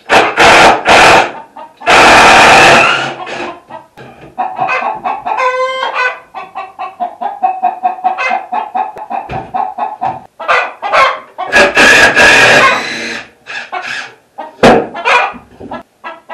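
Chickens clucking and squawking loudly at close range, in several very loud outbursts with busier calling between them.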